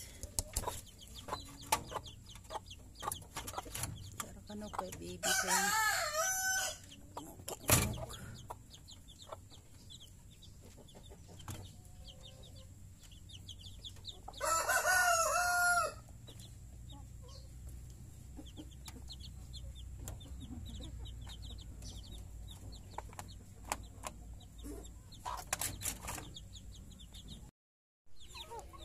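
Chickens clucking, with a rooster crowing twice, each crow about a second and a half long, about five seconds in and again about fifteen seconds in. A sharp knock near eight seconds is the loudest sound.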